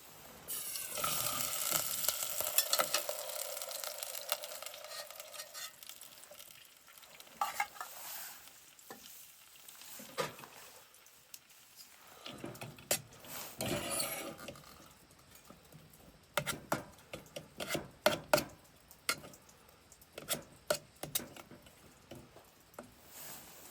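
Sizzling in a hot pan starts suddenly and fades over several seconds, then gives way to scattered clicks and scrapes of a utensil stirring in the pan.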